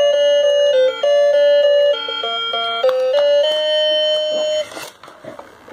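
Battery-powered toy fishing game playing its electronic music: a simple beeping tune, note after note, that stops about four and a half seconds in, leaving only a few faint small knocks.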